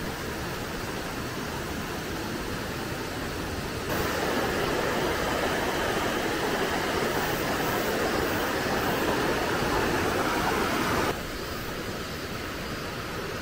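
Mountain stream rushing over rocks in shallow rapids: a steady noise of flowing water. It jumps suddenly louder about four seconds in and drops back just as suddenly after about eleven seconds.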